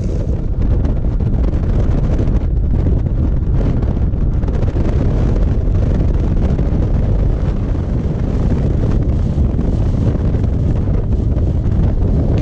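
Heavy wind buffeting on the microphone as a bass boat runs at speed across open water, with the outboard motor and the hull on the water underneath.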